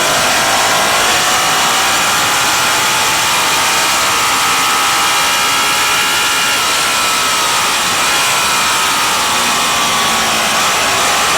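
Racing motorcycle engine held at high revs, its pitch climbing steadily for about six seconds and then easing off, over a loud rushing hiss.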